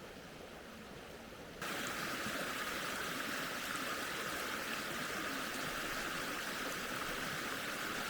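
Steady rushing of flowing water, like a stream, which jumps suddenly louder and brighter about a second and a half in.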